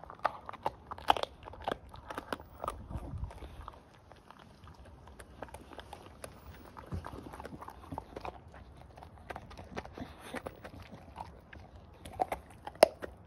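Staffordshire bull terrier chewing and gnawing a raw pork trotter: irregular crunches and clicks of teeth on the skin and bone. The chewing is busiest in the first few seconds, thins out in the middle, and a loud crack comes near the end.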